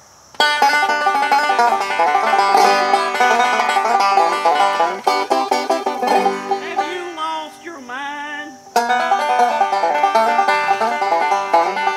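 Banjo playing a fast, bluegrass-style picked tune that starts abruptly about half a second in. Around seven to eight seconds it thins to a few bending notes, then the full picking comes back.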